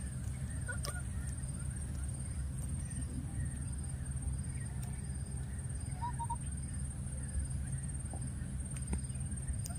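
Outdoor ambience: a steady low rumble and a thin, steady high-pitched whine, with a few faint, short animal calls, including two brief chirps about six seconds in.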